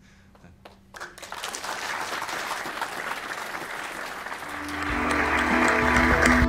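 Audience applauding, starting about a second in. Music with steady sustained notes and a bass line comes in over the applause near the end.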